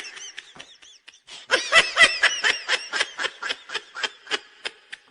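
High-pitched laughter in quick rhythmic ha-ha pulses. It breaks off briefly about a second in, starts again louder, then fades out gradually.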